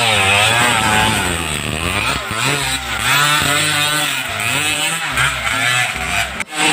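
Motocross dirt bike engine revving up and down over and over, its pitch rising and falling in repeated swells.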